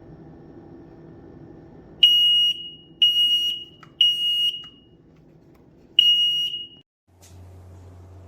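X-Sense SC07-WX smoke and carbon monoxide combo alarm sounding: three loud, high-pitched beeps a second apart, a pause, then the next round starting with a fourth beep. This three-beep pattern is the smoke-alarm signal.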